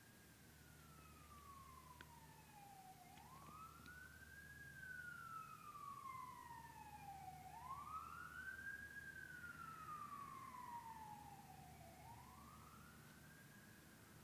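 A faint siren wailing, each cycle rising quickly and then sliding slowly down, about every four and a half seconds. It grows louder toward the middle and then fades.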